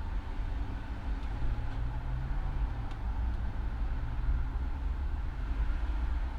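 Steady low rumble with a faint hum running under it, unchanging throughout.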